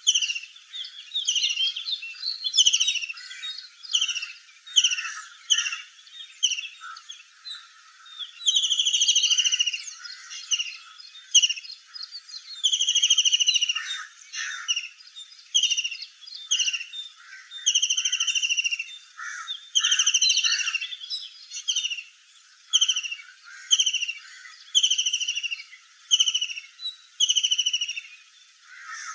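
Kingfisher calling: a string of short, high, shrill notes less than a second apart, broken every few seconds by longer calls lasting about a second.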